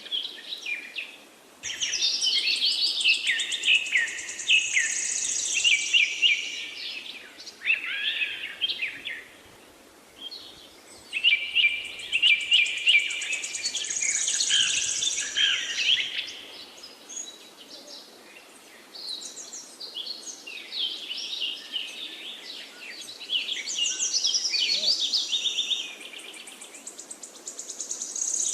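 Birds singing in bouts of rapid, varied chirps and trills, each lasting a few seconds with short pauses between, over faint steady background noise.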